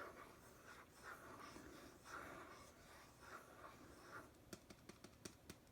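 Faint scratching of a pen stylus nib moving over a Wacom Intuos Pro tablet's surface, with a few light ticks near the end.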